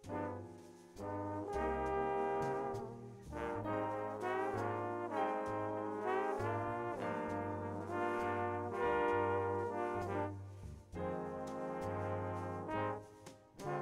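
A trombone section playing a jazz arrangement in harmony, sliding between some notes, over a double bass line. The music drops away briefly twice near the end.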